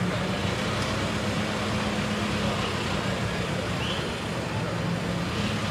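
JCB telehandler's diesel engine running steadily with a low hum, with street traffic noise behind it.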